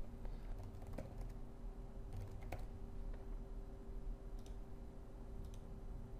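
Faint, irregular computer keyboard typing with a few scattered clicks, over a steady faint hum.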